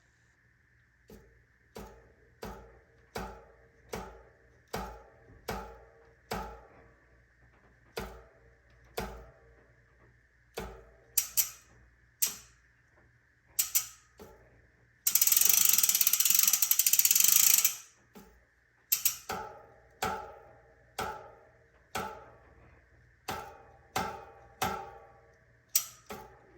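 Repeated sharp metallic knocks, each with a short ring, coming about once a second: the abnormal clunk heard on a landing impact after jumping a drop. About midway a loud rushing noise runs for nearly three seconds.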